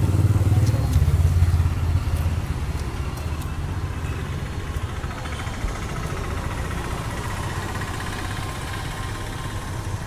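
Motorcycle engine passing close by, loud for the first two seconds or so, then fading away into steady street background noise.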